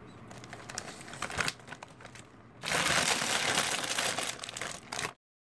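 Crinkling of a foil bag of Flamin' Hot Doritos being handled, light and patchy at first, then loud and dense from about two and a half seconds in. It cuts off suddenly near the end.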